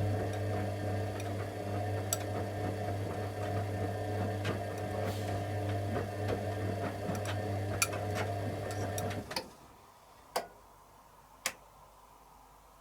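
Candy Aquamatic 100F compact washing machine's drum motor running with a steady hum and scattered light ticks, then stopping about nine seconds in. Two sharp clicks follow about a second apart as the programme moves into its heating stage.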